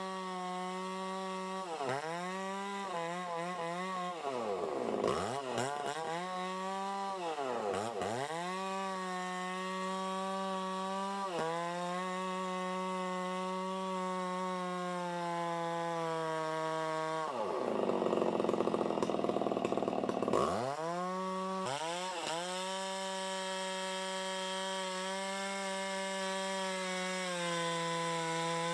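Chainsaw engine held at high revs, with the throttle let off and opened again several times so the pitch drops sharply and climbs back. There is a rougher, noisier stretch about two thirds of the way through.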